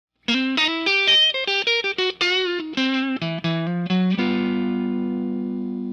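Intro music: a guitar riff of quick separate notes, some of them bent, ending about four seconds in on a held chord that rings out and slowly fades.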